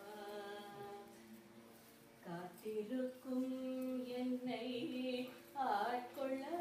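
A woman singing a devotional song solo and unaccompanied, holding long notes. Her voice fades to a soft held note about a second in and comes back strongly a little past two seconds.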